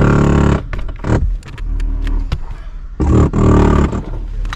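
A motor running at a steady pitch cuts off about half a second in, followed by scraping, knocking and clattering of rubble being worked, with a louder pitched sound for about a second near three seconds in.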